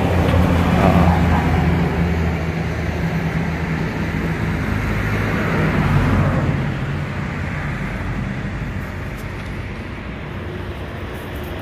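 Steady low engine hum with road-traffic noise that swells to a peak about six seconds in, then fades.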